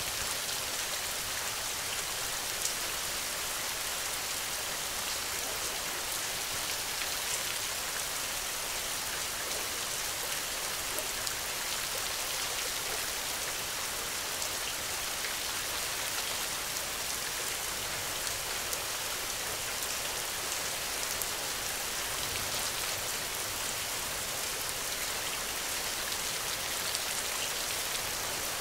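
Steady rain falling at a hut window: an even hiss with scattered faint ticks of single drops.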